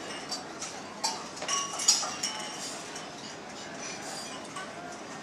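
Scattered light clinks of cutlery, glassware and crockery in a dining room, busiest between about one and two and a half seconds in, with the sharpest clink just before two seconds.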